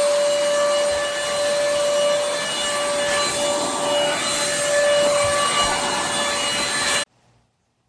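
Stick vacuum running: steady rushing air over a constant motor whine, which cuts off suddenly about seven seconds in.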